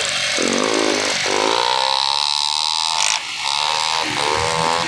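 Motorcycle engine revving, its buzzing pitch climbing and falling, with a short dip about three seconds in.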